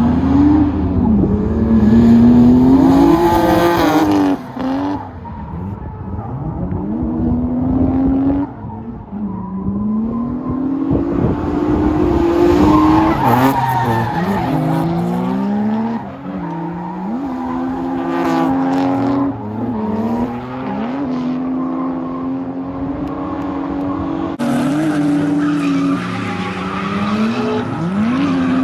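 Turbocharged 1JZ-GTE inline-six in a Lexus SC300 being driven hard in a drift, its revs climbing and dropping over and over, with tyres squealing at times.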